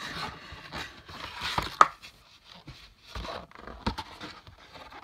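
Cardboard toy box and packaging being handled: irregular rustling, scraping and light knocks, with one sharp click about two seconds in.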